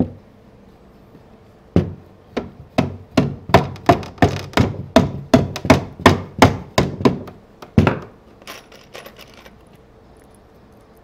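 Rubber mallet tapping 1/4-inch carriage bolts through the pre-drilled holes of a wooden chair frame: about twenty quick strikes, roughly three a second, ending in one harder blow. A single knock comes right at the start and a few light clicks follow near the end.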